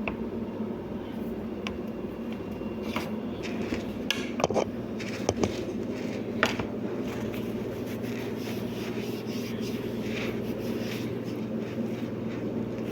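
Scattered light clicks and taps of a plastic keyboard case being handled as its battery compartment is worked on, a few in the first half, over a steady low hum.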